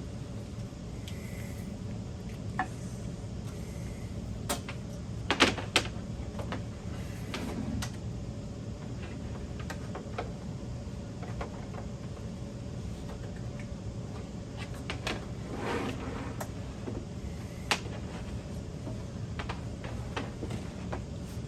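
Scattered light clicks and knocks of plastic monitor parts and cables being handled and plugged in, over a steady low hum. There is a louder cluster of knocks about five seconds in and another sharp knock later.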